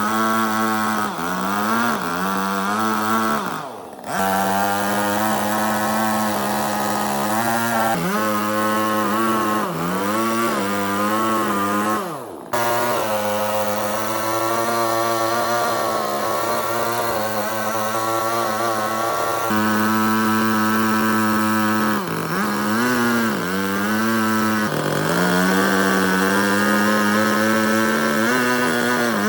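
Chainsaw running at high speed and cutting wood, its pitch sagging and recovering again and again as the chain bites in under load. The sound breaks off sharply twice, about four and twelve seconds in.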